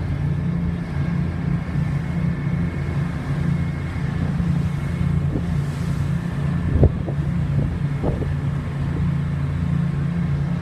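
Car ferry's engines running steadily under way, a constant low drone with the rush of wind and wake over it, and a couple of short thumps a little past the middle.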